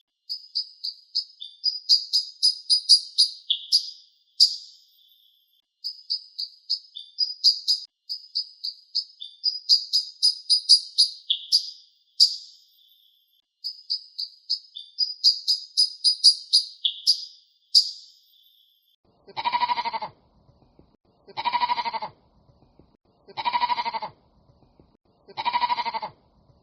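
High-pitched chirping in quick runs of short notes for most of the time, then an animal bleating four times near the end, each bleat about a second long and about two seconds apart.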